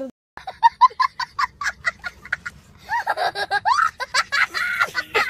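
A young boy laughing hard: quick hitches of laughter, about five a second, that break into longer high-pitched squeals of laughter from about three seconds in.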